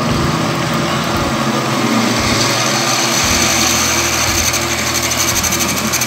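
Metal lathe running, its chuck spinning a steel bar while a twist drill bores into the end of it: a steady machine hum with the grinding hiss of the drill cutting steel.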